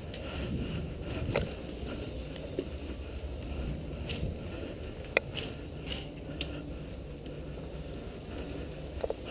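Low rumble of movement and wind on a body-worn GoPro, with a few scattered sharp clicks; the loudest click comes a little past the middle.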